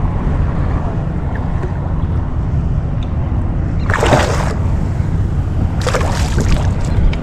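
Water splashing at the side of a fishing kayak, two splashes about four and six seconds in, over a steady low rumble of wind on the microphone and water moving against the hull.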